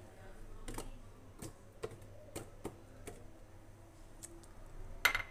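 Scattered light ticks and knocks as fresh strawberries are put into a blender jar, with a sharper clink near the end.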